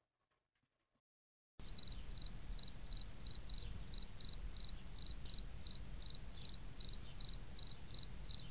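Cricket chirping: short high chirps repeating evenly about two and a half times a second over a low rumble. It starts suddenly about a second and a half in.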